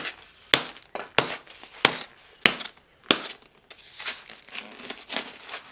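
A plastic surprise egg being pounded to crack it open. There are about six sharp knocks roughly every half-second, then softer crunching and crinkling of the breaking shell and packaging.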